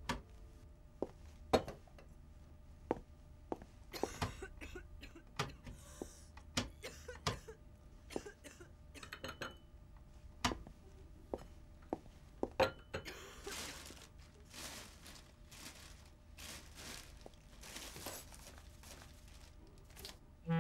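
Scattered clicks, clinks and knocks of small objects being handled, with some rustling, about a second in and again in the second half.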